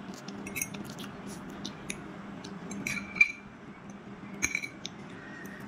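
Metal fork clinking and scraping against a ceramic plate while eating noodles: a handful of short, sharp clinks with a brief ring, the loudest a little past three seconds in. A faint steady low hum runs underneath.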